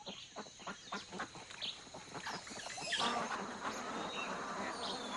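A flock of mottled brown domestic ducks dabbling and splashing in shallow water: many small splashes and clicks, with a few short calls.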